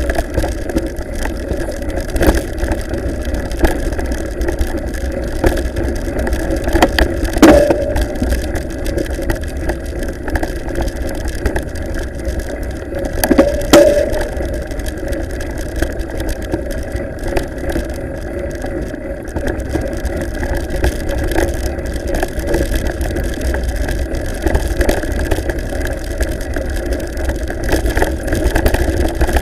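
Ride noise from a mountain bike's action camera bumping over a rough gravel track: steady wind on the microphone with rattling and frequent knocks from the bumps. Two louder knocks come about seven and thirteen seconds in.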